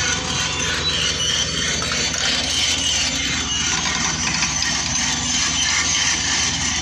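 Diesel engine of a JCB tracked excavator running steadily as it digs with its bucket.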